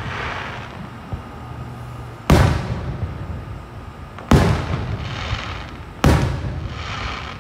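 Aerial fireworks shells bursting overhead: three loud booms about two seconds apart, each trailing off in a rolling rumble, the later two followed by a fizzing crackle.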